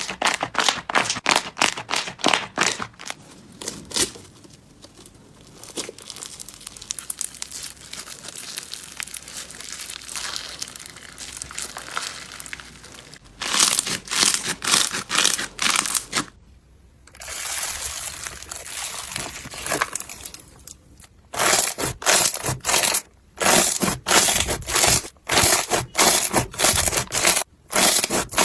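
Crunchy slime being squeezed and pressed by hand, giving runs of rapid crackling and popping clicks. It comes in several stretches, with quieter squishing between them and abrupt changes where one clip gives way to another.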